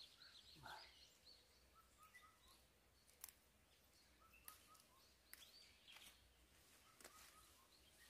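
Near silence: faint birds chirping now and then, with a few soft clicks.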